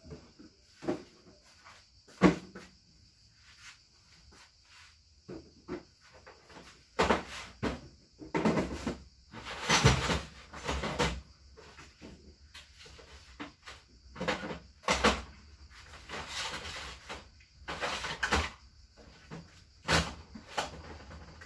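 Irregular knocks, clunks and rattles of objects being handled and set down, with the loudest sharp knock about two seconds in.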